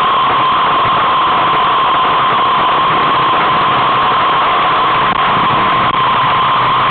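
Steady loud rushing noise of wind on the microphone of a camera moving along with the cyclists, with a constant hum riding on top.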